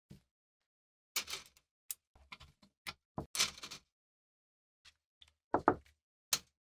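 Small steel parts of an antique saw tooth setter (a spring, pins, a washer, a sleeve and a T-handled rod) being set down on a paper-covered wooden workbench: a string of separate clicks and light knocks, the loudest a quick double knock towards the end.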